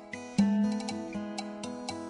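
Instrumental background music with sustained pitched notes and a light ticking beat.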